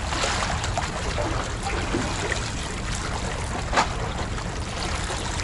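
Water washing and trickling against concrete breakwater tetrapods, with wind buffeting the microphone; a single sharp click about four seconds in.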